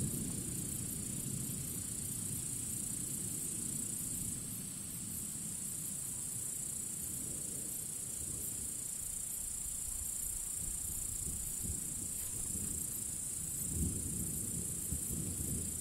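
Thunderstorm at night: a thunderclap dies away at the start, leaving a low rumble of distant thunder that swells again near the end. Under it runs a steady high-pitched hiss.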